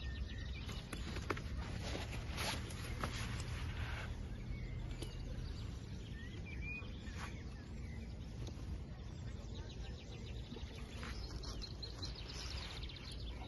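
Outdoor ambience: a steady low rumble, with scattered clicks and handling rustles in the first few seconds and again near the end, and a short bird chirp about halfway.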